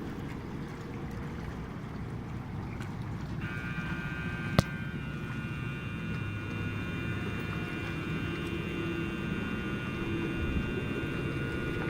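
Small ride-on boat running with a steady low rumble and wash of noise. A few seconds in, a steady high-pitched whine of several tones switches on and holds. A single sharp click comes about a second after the whine starts.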